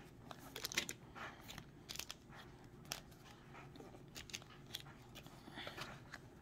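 Cardboard baseball trading cards being slid and flipped against each other by hand, a run of light, irregular clicks and scrapes.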